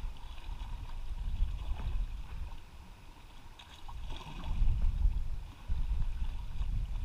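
Wind rumbling on the microphone, with sea water washing against breakwater rocks; the rumble drops away briefly about three seconds in and then rises again.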